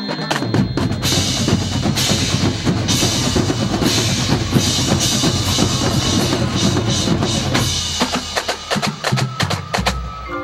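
Marching band drumline playing a fast, dense drum feature with rolls and bass drum hits, thinning to scattered strikes near the end.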